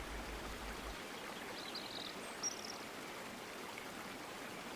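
Waterfall water rushing steadily, with a bird chirping briefly twice around two seconds in.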